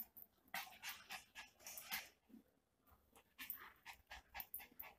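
Faint panting of a miniature pinscher: runs of short quick breaths, one in the first two seconds and another near the end.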